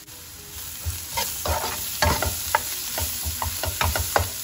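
Chopped onions and spices sizzling in oil in a nonstick frying pan. From about a second in they are stirred briskly with a spatula, which scrapes and knocks against the pan over the sizzle.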